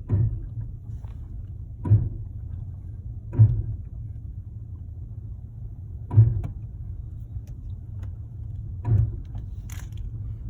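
A 2016 Chevy Malibu giving dull thumps under light braking at low speed, five times at uneven intervals, over the steady low rumble of the car rolling. It is an intermittent knock whose cause the owner does not know.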